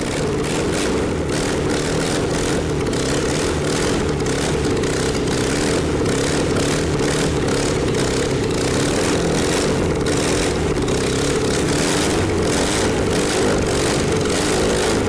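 Four-stroke carburetted petrol engine on a test stand, running steadily just after starting, its pistons fitted with rubber piston rings in place of metal ones.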